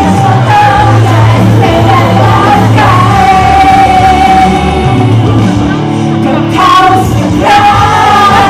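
Loud pop music with singing voices and shouts from the performers.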